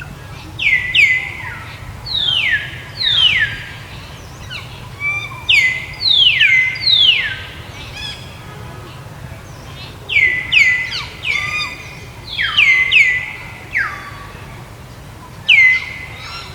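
Repeated high, whistle-like animal calls, each sliding sharply down in pitch and then holding briefly, several overlapping, in irregular bursts.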